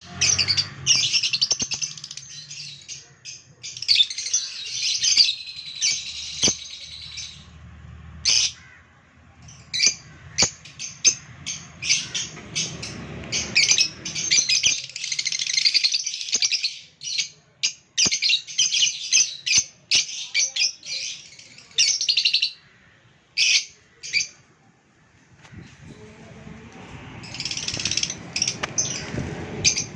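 Several small birds chirping in rapid, high-pitched bursts, their calls overlapping, with short pauses between bursts. There are a few sharp clicks along the way.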